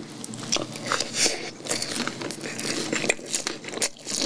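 Close-miked chewing of a mouthful of boneless fried chicken: an irregular run of bites and mouth clicks.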